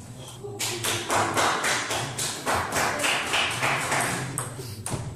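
Table tennis rally: the ball clicks in a quick run back and forth off the bats and the table. It starts a little under a second in and stops shortly before the end.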